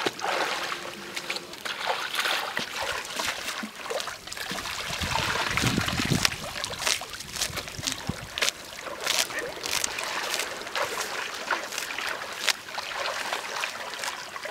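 Water splashing and trickling, with many irregular short splashes and a heavier stretch of splashing in the middle.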